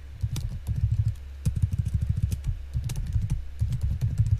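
Typing on a computer keyboard: rapid keystrokes in several quick bursts over a steady low hum.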